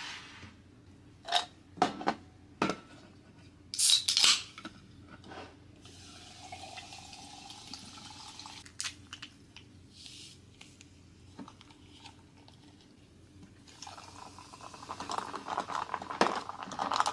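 Ice clinking in a glass, a loud sharp hiss about four seconds in as a can of sparkling water is opened, then LaCroix sparkling water poured fizzing over the ice. Near the end a spoon or stirrer clinks and rattles against the glass as the drink is stirred.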